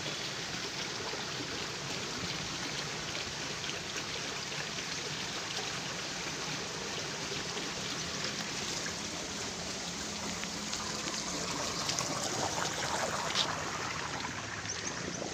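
Water running steadily through a narrow concrete-walled channel that feeds the fish ponds, a continuous trickling rush.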